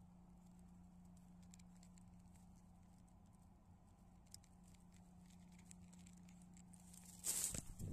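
Near silence, with a faint steady low hum and a few light ticks. Near the end comes a short, loud rustling of the camera being handled.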